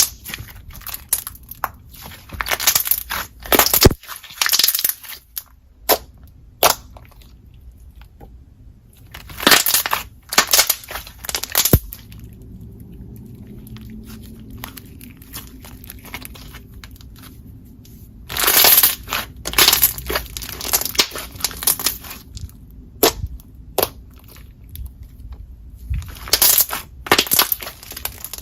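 Thick, glossy slime being squeezed and poked by hand, giving dense crackling clicks and pops. They come in bursts, with quieter pauses between.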